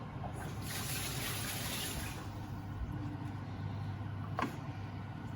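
Kitchen tap running as hands are washed, the water going for about two seconds and then turned off. A steady low hum runs underneath, with a single click near the end.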